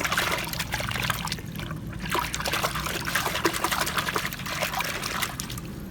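Water splashing and trickling as a muddy toy car is scrubbed and rinsed by hand in murky water, starting suddenly and easing off about five seconds in.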